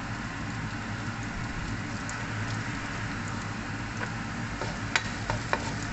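Chopped onions sizzling in hot oil in a wok, a steady hiss with a few sharp ticks near the end.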